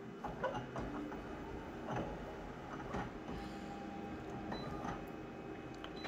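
Office multifunction colour copier scanning an original on its glass: the scanner mechanism runs with a faint steady whir, broken by a handful of short clicks and knocks.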